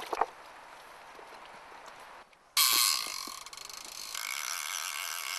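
Fly reel's click-and-pawl drag buzzing loudly as a hooked Atlantic salmon pulls line off it, starting suddenly a little over halfway in and changing pitch about a second and a half later. A few faint knocks come just before.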